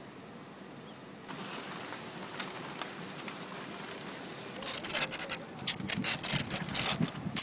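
Paper stencil sheets on a wall rustling and crackling: faint hiss at first, then from a little over halfway through a loud, rough run of crackling and rustling.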